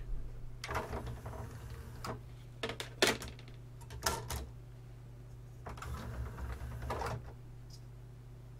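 Arcam Alpha 6 CD player's disc tray: clicks and knocks as a CD is set onto the open tray, then from about six seconds in the drawer's loading motor and plastic gears run for about a second and a half as the tray closes. The tray mechanism is working again with its broken gear wheel replaced.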